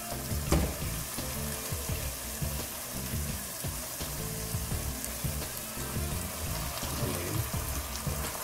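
Sliced onions frying in a pot with a steady sizzle as pieces of seared beef shank are set down among them, with a few light clicks of handling.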